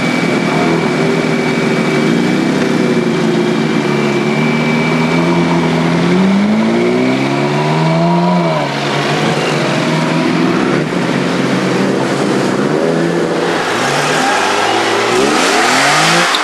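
Ferrari 458 Italia's V8 running at low revs, then revving up as the car pulls away, its pitch climbing and dropping back about eight seconds in. Near the end a Nissan 350Z's V6 revs up as it passes.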